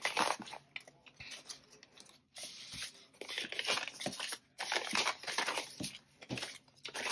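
Paper dollar bills being handled and shuffled: rustling and crinkling of paper money in several bursts with short pauses between them.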